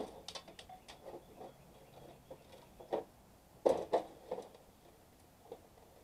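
Light clinks, taps and knocks of sheet-metal and coil parts of an air conditioner being handled and shifted during dismantling, loudest in a quick cluster about four seconds in.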